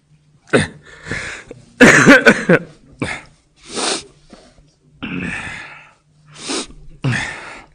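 A man sobbing into a microphone: a string of about seven gasping, breathy sobs, the loudest about two seconds in with a wavering, crying voice.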